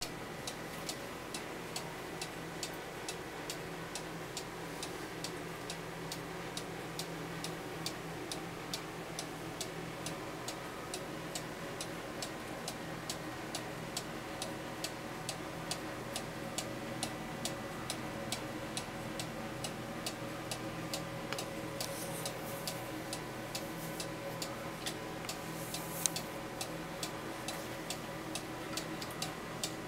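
Black Forest chalet-style cuckoo clock ticking steadily, its pendulum escapement giving an even run of sharp ticks, with a few louder clicks near the end.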